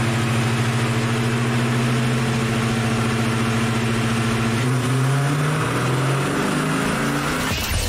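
Ford Mustang GT's V8 engine running steadily on a chassis dynamometer. From about two-thirds of the way in, its note shifts up and down in steps as the revs change.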